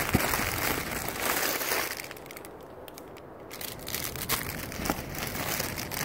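Small clear plastic jewelry bags crinkling and rustling as they are handled and shifted about in a cardboard box, with a lull about halfway through before the crinkling picks up again.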